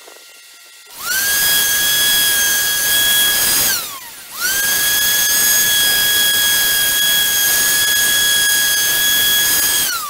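A small power tool's electric motor runs twice. Each time it spins up quickly to a steady high whine and then winds down: the first run lasts about three seconds, the second about six.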